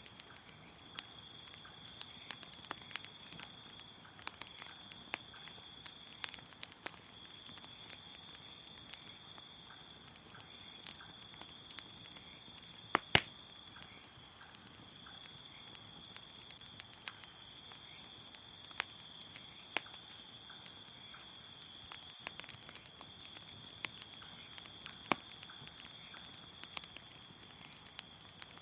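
Crickets chirping in a steady high trill, over a bonfire crackling with scattered sharp pops. The loudest is a quick pair of pops about halfway through.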